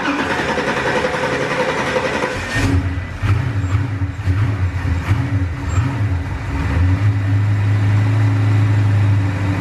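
The twin-turbo 400 cubic inch Windsor-style V8 cranks on the starter for about two and a half seconds, then catches and runs. It idles unevenly at first, the note rising and falling, and settles into a steadier idle near the end. The mixture is running rich (fat) at idle.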